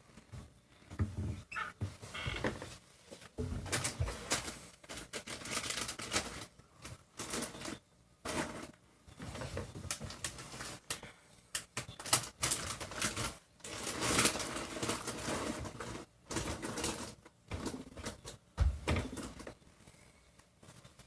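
Nerf blasters being primed and fired: irregular bursts of plastic clacking and clattering, with short pauses between them.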